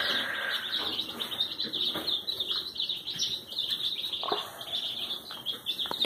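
A brood of young ducklings peeping steadily, many high chirps overlapping into a continuous chorus.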